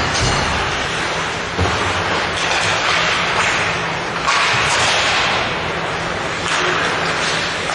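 Ice hockey play on an indoor rink: a steady rushing hiss of skates carving and scraping the ice over a low steady hum, with sharper swells about one and a half and four seconds in.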